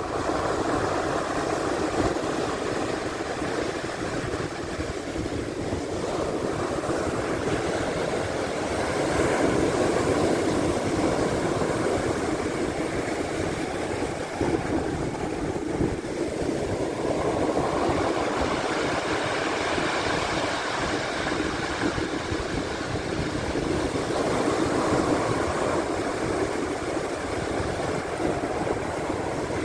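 Black Sea surf: a steady wash of waves that swells and eases slowly, strongest around a third of the way in and again after the middle.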